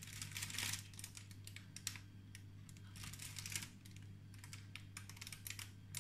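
Faint, irregular soft rustles and light clicks of a plastic piping bag being squeezed and handled while piping small cream leaves with a leaf tip, over a steady low hum.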